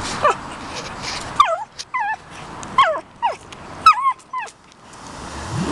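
Pug giving a string of about eight high yips and whining barks, each sliding down in pitch.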